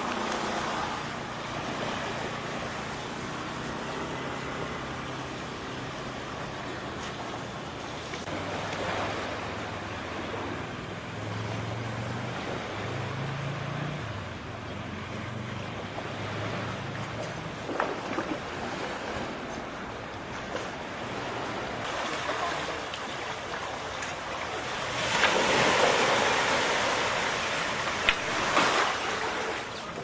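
Storm-driven surf washing over a flooded beach, with wind on the microphone. The water swells louder for a few seconds near the end.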